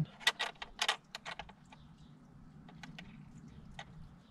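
Small metal clicks and clinks of a snap hook being clipped onto a metal ring on the underwater drone's eye bolt, securing the tether line so it takes the drone's weight. There is a quick run of clicks in the first second or so, then a few scattered ticks.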